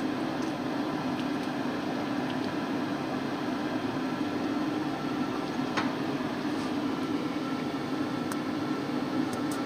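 Steady, even hum of a fan running, with a few faint clicks over it, the clearest about six seconds in.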